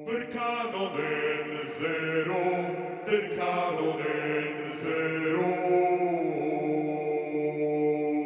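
Music: a steady droning chord held under a chanting voice whose pitch slides and bends. The voice stops about six seconds in and the drone carries on alone.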